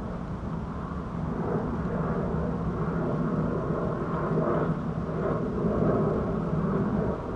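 American bullfrogs calling: a deep, low drone that grows louder about a second and a half in.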